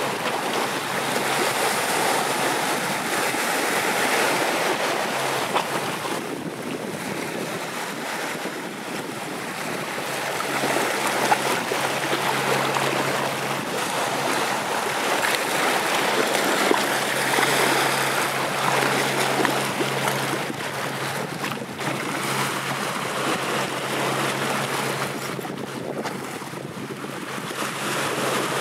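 Sea surf breaking and washing around rocks in the shallows, swelling and easing as each wave comes in and draws back.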